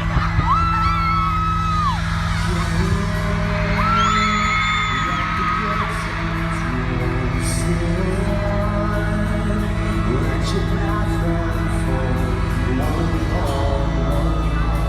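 Loud amplified music in a concert hall, recorded from the crowd, with a steady heavy bass. Two long, high held vocal notes ring out, one right at the start and one about four seconds in.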